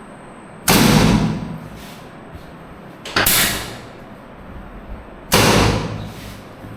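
Three loud sudden thumps about two and a half seconds apart, each fading over most of a second: the thrusts of a chiropractic pelvis adjustment.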